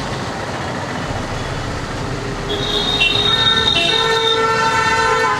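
Road traffic noise, with vehicle horns sounding one long, steady blast about halfway through that stops near the end.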